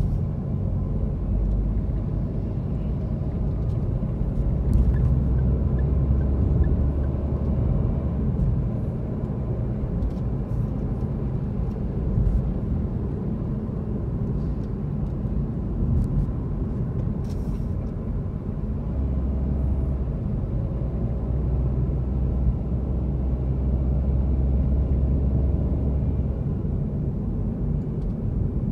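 A car driving, heard from inside the cabin: a steady low rumble of engine and tyre noise that swells for a few seconds twice, with a few faint clicks.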